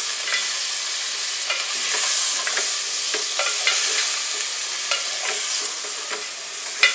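Raw chicken pieces frying in hot oil in an aluminium pot with a steady sizzle, stirred with a wooden spatula that scrapes and taps against the pot now and then, with a sharper knock near the end.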